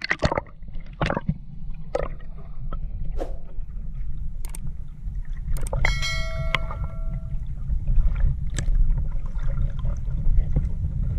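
Muffled underwater sound from a camera held below the surface beside a fishing banca: a steady low rumble of water with scattered sharp knocks and clicks, and a brief ringing clink about six seconds in.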